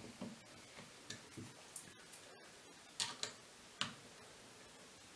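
Small scattered clicks and taps of a Rap4 T68 paintball marker's parts being handled and fitted together, the two loudest about three seconds and nearly four seconds in.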